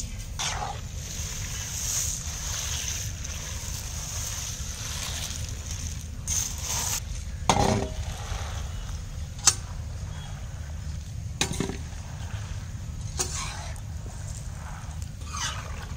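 A long metal ladle stirring pasta in a thin milky sauce in a large metal kadhai, sloshing and scraping, with a few sharp metallic clinks against the pan about 7, 9, 11 and 13 seconds in. A steady low rumble runs underneath.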